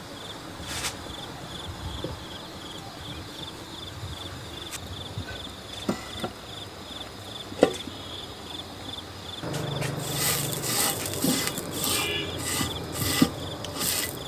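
Cricket chirping steadily in a fast, high, pulsed trill, with a few light knocks. About ten seconds in, a louder rhythmic scraping starts over it.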